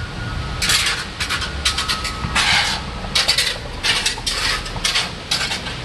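Strong thunderstorm wind with a steady low rumble, broken by irregular short bursts of rustling and rattling as leaves and debris are blown about.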